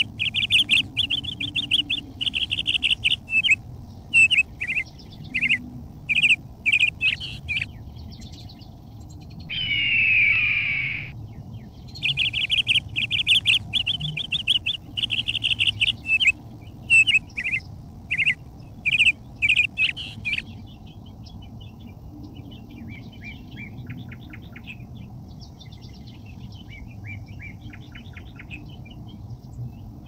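Small birds chirping: runs of short, repeated chirps, with a louder burst of tumbling calls about ten seconds in. After about twenty seconds the chirping turns fainter and quicker, over a steady low background hum.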